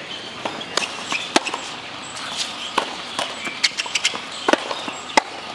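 Tennis balls struck by rackets and bouncing on a hard court during a serve and rally: a series of sharp, separate pops, roughly one every half second to a second.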